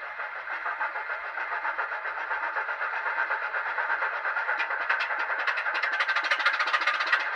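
Sound decoder in an N gauge Farish Class 25 model playing a recorded Sulzer diesel engine through a tiny sugar-cube speaker, thin and lacking bass. The engine is starting up and running up, growing steadily louder with a rapid pulsing beat that becomes more pronounced in the second half.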